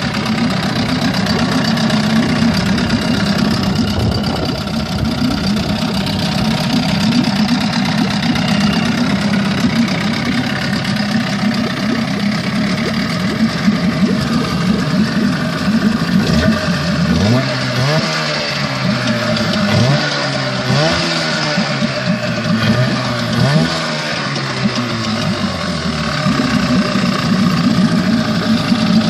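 1986 Evinrude 6 HP two-stroke outboard motor running at a low idle after a new power pack and fuel pump, with the carburettor just set. A little past halfway it is revved in a run of about six quick throttle blips, roughly one a second, then settles back to idle.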